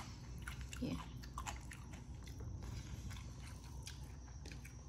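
Quiet eating sounds: chewing, with small clicks of fingers mixing rice on a steel plate.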